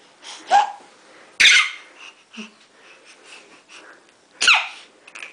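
A seven-month-old baby's high-pitched screeches and squeals, three short ones; the last slides down in pitch.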